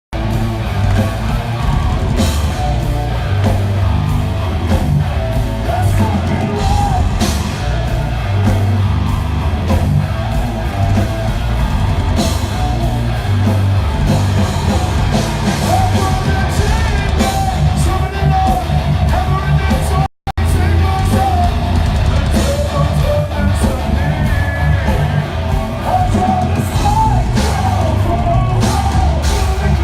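Heavy rock song with sung and shouted vocals over drums and distorted guitars. The sound drops out for a split second about two-thirds of the way through.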